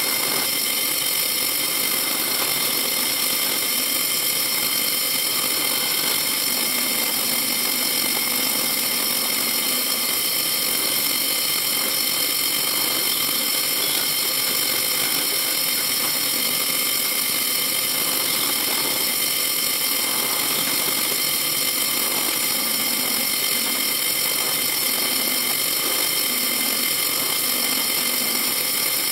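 Drill press motor running steadily with a high whine while its bit cuts a ring of small holes through sheet metal.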